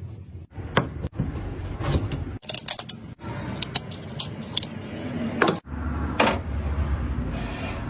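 Woodworking hand-tool work: scattered sharp clicks and taps, broken by several abrupt cuts between short clips.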